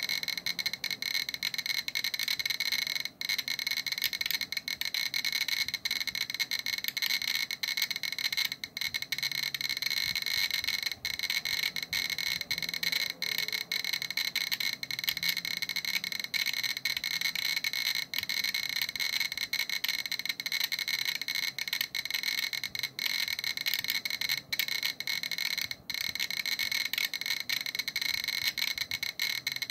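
GQ Geiger counter clicking very rapidly and irregularly, about forty counts a second, each count a short beep. The detector is picking up gamma radiation from a uranium-238 metal sample.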